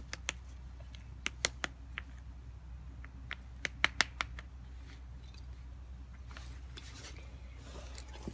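Small rock hammer tapping at a plaster fossil-dig block, chipping the plaster away from an ammonite inside: about a dozen sharp, irregular knocks in the first half, the loudest cluster about four seconds in.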